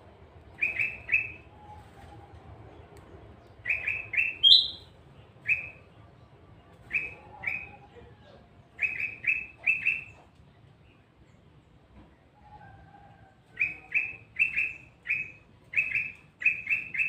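Tilang emas songbird calling in short, sharp, falling chirps, mostly in quick runs of two to four, with pauses between the runs and a longer gap about two-thirds through; lure-song used to set other birds of its kind singing.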